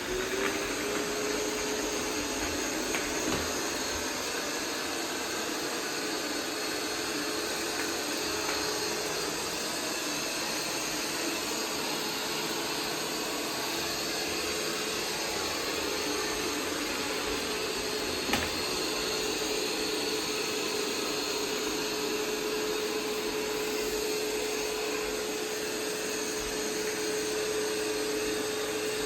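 iRobot Roomba 505 robot vacuum running steadily with a steady hum, its motor rising in pitch as it spins up in the first second. There is a single sharp click about 18 seconds in.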